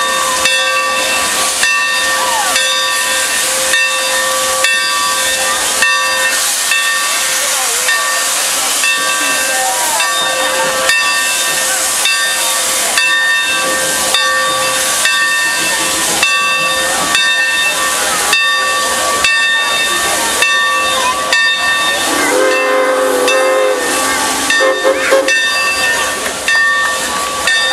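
Santa Fe 3751, a 4-8-4 steam locomotive, letting off loud steady steam hiss with a long, unbroken whistling tone over it and a regular beat of short chuffs. A second, lower tone joins for a few seconds near the end.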